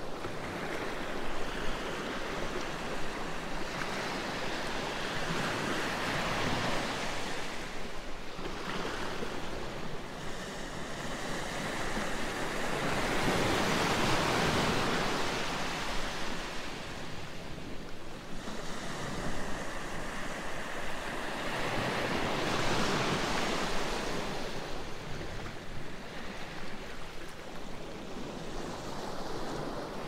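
Gentle sea waves breaking over low rocks and washing up a sandy beach, in three slow surges that swell and ebb, the loudest about halfway through.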